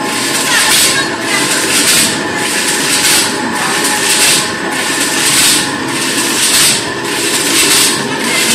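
Metal wire mesh weaving loom running: a hissing, clattering beat repeating a little faster than once a second, one beat per weaving cycle, over a steady machine hum.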